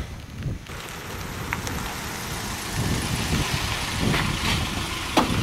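Compact pickup truck's engine running at low speed as the truck pulls up close, with a short sharp knock near the end.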